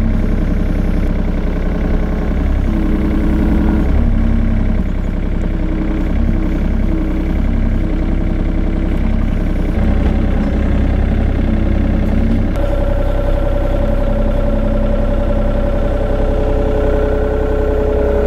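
John Deere mini excavator's diesel engine running under load while the bucket digs and dumps dirt, with steady tones from the machine shifting as the arm works. About two-thirds of the way through, a higher steady whine sets in and holds.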